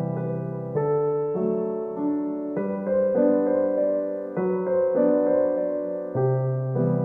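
Background music: a slow piano or electric-piano piece playing sustained chords that change about every second.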